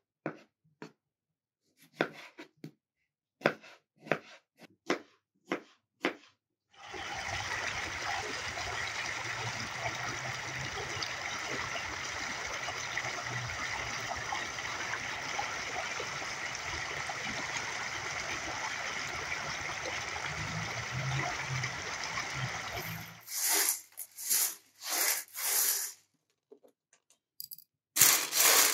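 A knife slicing tomatoes on a plastic cutting board: a run of sharp separate cuts. About seven seconds in, a steady rushing noise with a low hum starts and lasts about sixteen seconds. It is followed by short clattering bursts of dry chickpeas being handled on a metal tray.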